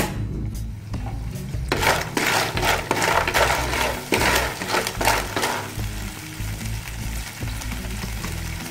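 A sharp click at the start, then cockles in their shells sizzling loudly in a hot frying pan from about two seconds in as liquid meets the hot pan, with scraping strokes as they are stirred. After a few seconds it settles to a steadier, quieter sizzle.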